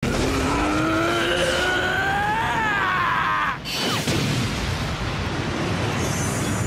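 An anime character's long scream, rising steadily in pitch over loud noisy battle sound effects. About three and a half seconds in, it cuts off suddenly. A quick downward swoosh follows, then continuous loud noise from the fight effects.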